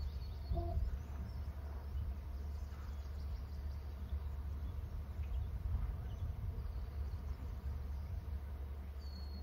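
Outdoor ambience: a steady low rumble with faint, scattered bird chirps. Near the end a high whistled call begins, falling in pitch.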